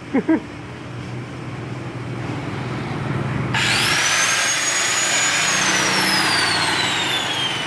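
Handheld electric angle grinder switched on, its whine rising quickly to full speed and holding about two seconds, then switched off and spinning down in a long falling whine.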